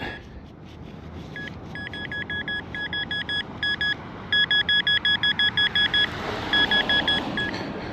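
Metal detector beeping on a target: a high tone pulsing about five times a second, in several runs broken by short gaps.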